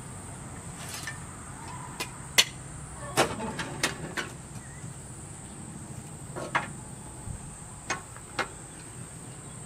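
Irregular sharp knocks and clanks at a sheet-metal wood-burning stove as its firebox is tended, the loudest about two and a half seconds in. A steady high drone of insects runs underneath.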